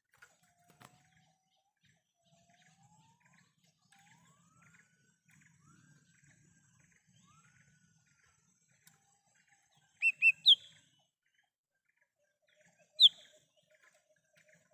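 Small green leafbird (cucak hijau mini) calling: a series of faint rising whistles, then about ten seconds in a loud burst of short sharp chips and a high downslurred note, with one more sharp note near the end.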